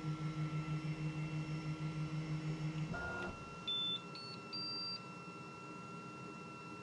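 3D printer's stepper motors humming in even pulses, about six a second, as the print head moves, then stopping about three seconds in. Three short beeps follow, each higher than the last: the printer's signal that the print is finished.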